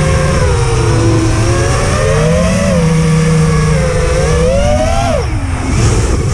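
FPV miniquad's brushless motors and propellers whining, the pitch rising and falling with the throttle, dropping sharply about five seconds in and climbing again near the end.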